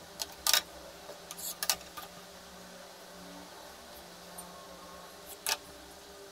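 Kitchen knife cutting through a rolled dough log and tapping the work surface: a few sharp clicks and knocks in the first two seconds, then more near the end, over a faint steady hum.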